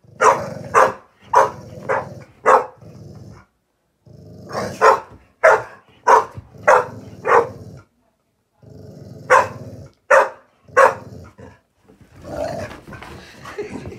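Dogs play-fighting: sharp barks in three quick runs, with growling underneath, turning into a rough, continuous growl near the end. This is play, not aggression: the dog sounds mean when it plays.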